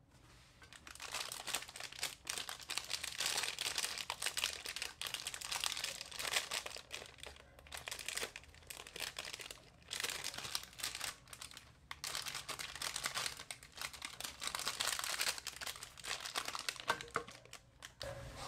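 Close-up crinkling and crackling in a dense, continuous stream, broken by a few brief pauses.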